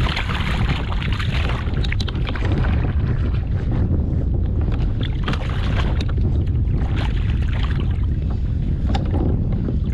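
Wind buffeting the microphone over open water, with speckled trout splashing and thrashing at the surface on a rope stringer beside the kayak. A few sharp clicks come through the splashing.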